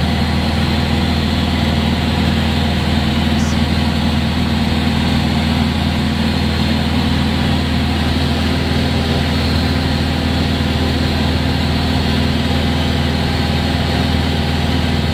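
Cockpit noise of a Morane-Saulnier Rallye 100 ST single-engine light aircraft in flight: the piston engine and propeller droning steadily at a constant setting, with air noise over the airframe.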